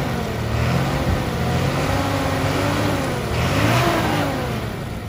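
Diesel engine of a Nissan Diesel dump truck revving unevenly, its pitch rising and falling, loudest about three and a half seconds in, while the truck is stuck in soft dirt.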